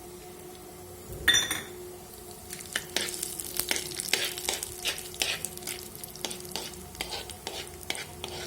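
Tadka (tempering spices) frying in hot oil: sizzling with a dense run of sharp crackles from about two and a half seconds on, after a single loud metallic clank about a second in.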